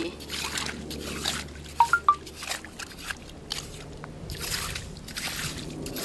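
Long tongs sloshing and scraping through shallow water and mud on a tidal flat, with splashing and dripping water. A few short, sharp clicks come about two seconds in and are the loudest sounds.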